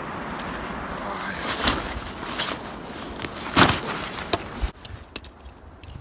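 Footsteps on dry pine needles and twigs, about one step every two-thirds of a second, over a steady background hiss. Near the end the hiss drops away and a few light clicks follow from backpack straps and buckles being handled.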